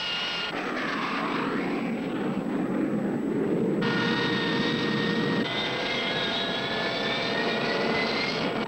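Jet engine of an A-7 Corsair II (Allison TF41 turbofan) running on the ground: a steady roar with a high whine, broken by a few abrupt cuts. The whine slowly rises in pitch in the latter half.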